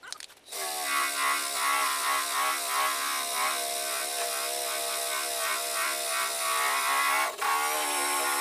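Cordless drill with a disc attachment spinning up and grinding against the car door's steel panel, stripping old paint and body filler. It makes a steady whine with a hiss over it, starting about half a second in and dropping out briefly near the end before picking up again.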